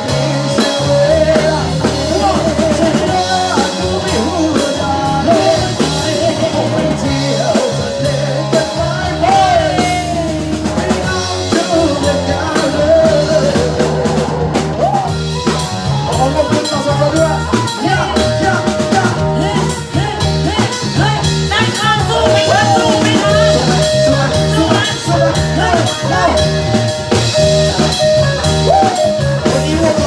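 A live band playing loudly through a PA: drum kit, electric guitars and sung vocals.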